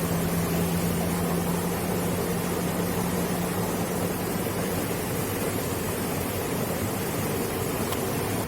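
Steady rushing noise, with a low steady hum, like a motor running, that fades out about halfway through.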